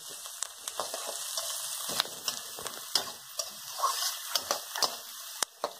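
Chopped onions and green chillies sizzling in hot oil in a steel kadai, stirred with a spoon that scrapes and clicks against the pan every second or so.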